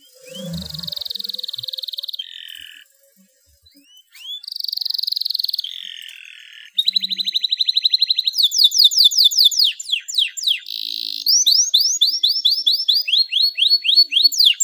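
Domestic canary in breeding condition singing: rapid buzzy trills held on one high pitch, a short break about three seconds in, then fast repeated downward-sweeping notes, about four a second, toward the end.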